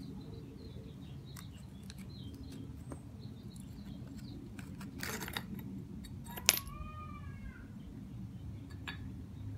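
Shards of a cracked terracotta patio tile clinking and scraping as they are pried loose and lifted out by hand, with one sharp clink about six and a half seconds in. Right after it comes a brief animal call that rises and falls in pitch.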